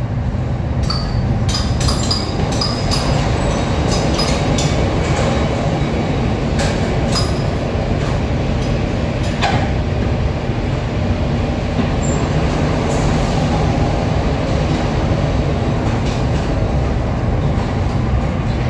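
Steady, loud low rumble of running machinery, with scattered light clicks and clinks.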